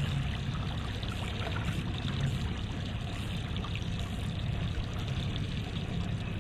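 Water rushing and splashing steadily along the hull of a boat under way, over a low steady drone.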